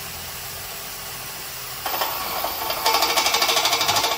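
Cordless drill with a step drill bit boring a hole through a steel exhaust mid-pipe. The motor runs steadily, then about two seconds in the sound grows louder and harsher, chattering fast as the bit cuts into the pipe wall.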